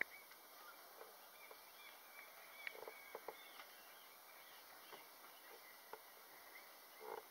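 Near silence outdoors, with faint high chirping now and then and a few soft clicks and knocks, the loudest about three seconds in and near the end.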